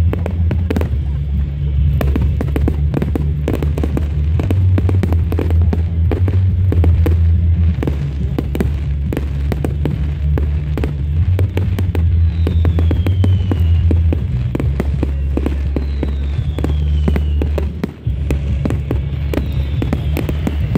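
Firework display: a steady run of bangs and crackling bursts from aerial shells. Three short falling whistles come in the second half.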